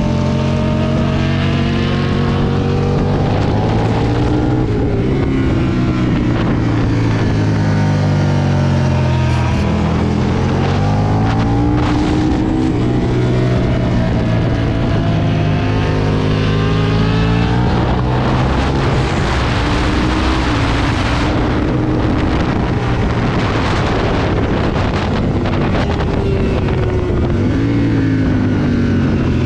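Aprilia Tuono 1000 V2's V-twin engine at track speed, its pitch repeatedly rising as it pulls hard and falling as it shuts off and slows for corners, with heavy wind rush on the microphone.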